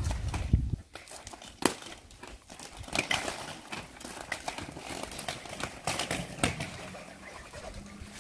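Children's inline skates rolling and clattering over interlocking paving bricks, with scattered sharp knocks and scrapes of the wheels and boots on the pavement.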